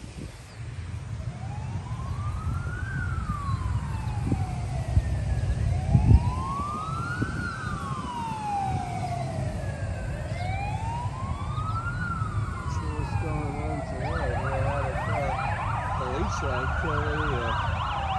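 An emergency vehicle siren wailing, rising and falling slowly about every four and a half seconds; from about thirteen seconds in, a second, faster-warbling siren tone joins it. A low rumble runs underneath, with a short thump about six seconds in.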